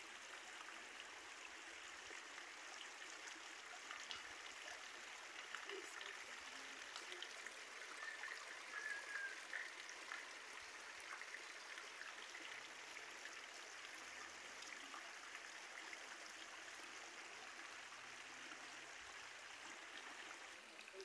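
Steady hiss of rainwater runoff flowing across a flooded street.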